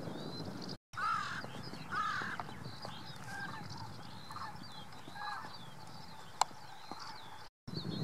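Outdoor bird calls: a series of short, harsh, crow-like calls, the loudest about one and two seconds in, over faint high chirping of small birds. The sound cuts out completely for a moment twice.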